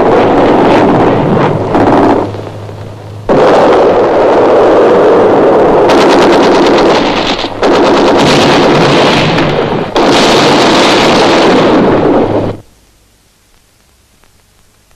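Loud, dense battle sound of gunfire and explosions, in blocks that cut in and out abruptly. It stops suddenly about twelve and a half seconds in, leaving a faint hush.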